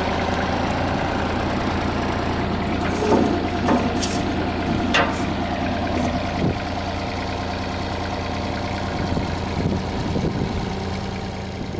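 Mitsubishi MM20CR mini excavator's diesel engine idling steadily, with a few short sharp clicks and knocks over the top about three to six seconds in.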